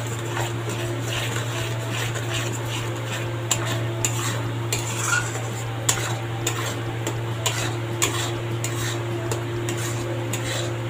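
Metal spatula scraping and knocking against a metal kadhai in irregular strokes as a thick ground onion, garlic and ginger masala paste is stirred and fried in mustard oil, with a light sizzle underneath. This is the stage of frying the paste until the oil separates.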